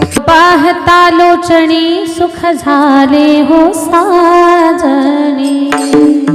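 A woman singing the opening panchapadi of a Marathi Varkari kirtan: one long, ornamented line with many pitch turns, over a steady accompanying note. The voice stops about a second before the end, leaving the held note and a few drum strokes.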